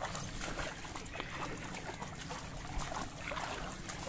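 Water hyacinth leaves rustling and crackling, with light sloshing of shallow water, as people wade through the dense plants.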